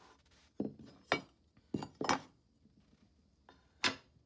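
About five sharp clicks and clacks of hard objects knocking together as a caster mount plate and a plastic speed square are positioned and handled against a wooden base.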